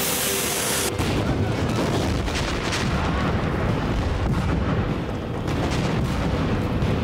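Film battle sound effects: a hiss for the first second, then a bridge blowing up, with a long low rumble and a few gunshots.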